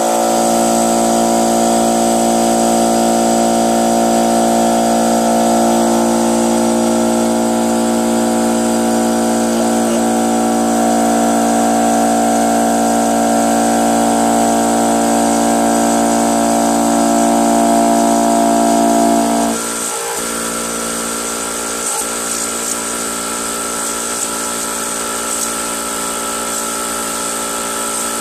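Brute 10-gallon electric air compressor running steadily on its first start after a new head gasket and reed valve, its pump filling the tank with air. The pump head is uncovered, with the cowling off. About two-thirds of the way in, the sound drops in level and its lower hum fades.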